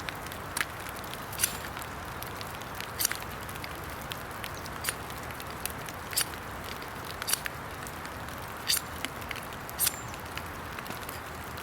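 Steady rain hiss with irregular sharp ticks of drops landing close by, roughly once a second.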